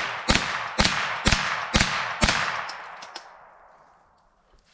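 .22 LR rifle fired rapidly, five shots about half a second apart in the first two and a half seconds, each with a ringing echo that fades out over the next couple of seconds.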